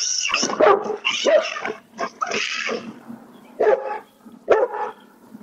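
AI-generated dog barking: a run of short barks, fuller in the first few seconds, then a few sparser ones.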